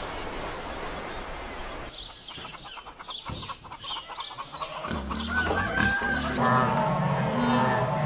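Farm animal calls in short clips cut together: rapid, short repeated calls from about two seconds in, then longer pitched calls over a low hum, with abrupt cuts between the clips.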